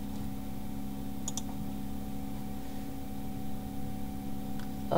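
Steady low electrical hum and hiss of room tone, with a faint quick double click a little over a second in and another faint click near the end.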